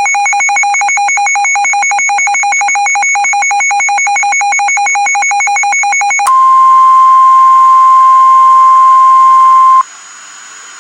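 Emergency Alert System alert tones: a fast electronic warble between two pitches for about six seconds, then a single steady high tone, near the 1050 Hz weather-service warning tone, for about three and a half seconds that cuts off suddenly, leaving faint hiss. The tones signal the tornado warning that is about to be read.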